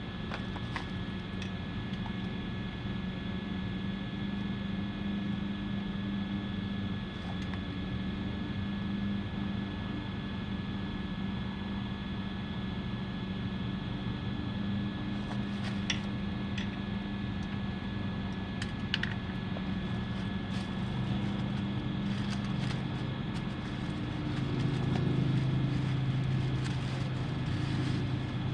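A motor running steadily in the background with a few light clicks. It grows louder near the end.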